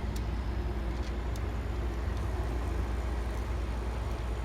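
A steady low rumble, with a few faint clicks in the first second and a half.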